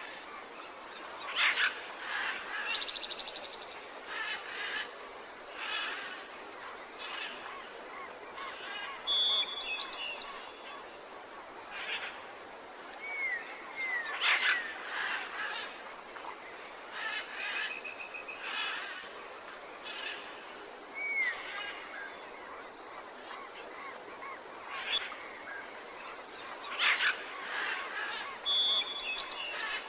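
Tropical forest ambience: many birds calling and chirping over a steady background hiss, with several short rising whistles and a fast buzzing trill that comes back three times.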